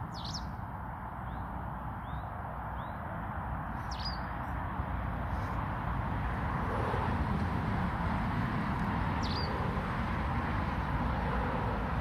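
Small bird giving sharp, high, downward-sweeping chirps: three clear ones, about at the start, about four seconds in and about nine seconds in, with fainter chirps between the first two. A steady low rumble runs underneath.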